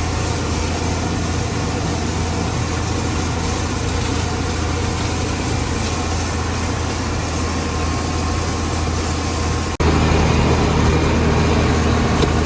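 Farm tractor engine running steadily, with a strong low hum and a broad rushing noise over it; it gets louder near the end.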